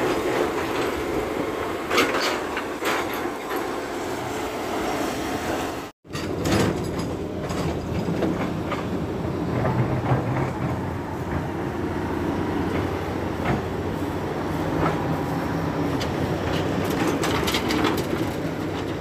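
Diesel engines of dump trucks and an excavator running steadily, with scattered knocks and clanks. The sound drops out for an instant about six seconds in.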